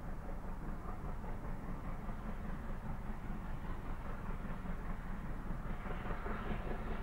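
BR(W) 94xx-class pannier tank steam locomotive No. 9466 working up a gradient with its train, heard from a long way off, the sound growing fuller and louder near the end.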